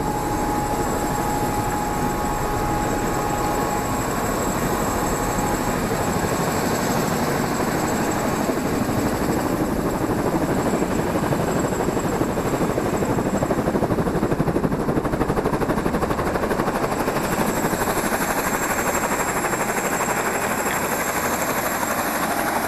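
Helicopter running on the ground: a steady, loud mix of fast rotor-blade chop and a high, steady engine whine.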